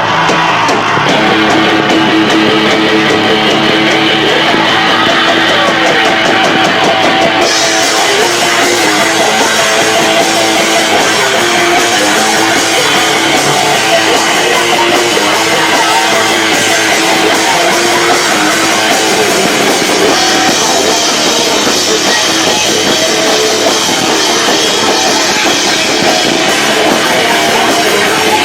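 Live loud rock band playing in a garage, with electric guitar and drum kit, recorded on a camcorder microphone that is overloaded by the volume.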